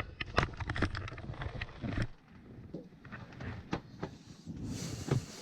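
Hand work on boiler piping: a quick run of metallic clicks and knocks from fittings and tools as hoses are disconnected, then scattered clinks and a brief hiss near the end.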